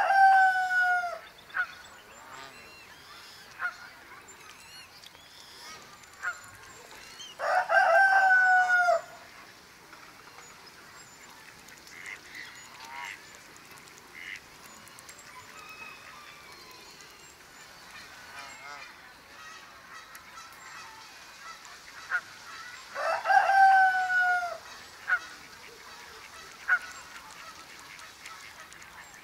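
Birds calling: three loud, drawn-out calls, each about a second and a half and dropping in pitch at the end, come near the start, about eight seconds in and near the end, with faint short chirps between them.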